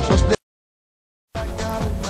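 Upbeat music with a steady beat cuts off abruptly, then about a second of dead silence, then a different background music track starts.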